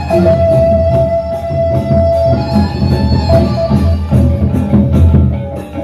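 Gendang beleq ensemble, the Sasak gamelan of Lombok, playing loudly: deep beating of the big barrel drums under ringing gongs and cymbal strokes, with a held ringing tone through the first half.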